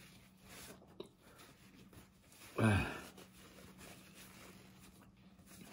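Paper towel rustling faintly as greasy hands are wiped, with a small click about a second in. About two and a half seconds in comes one short low tone, falling in pitch, the loudest sound here.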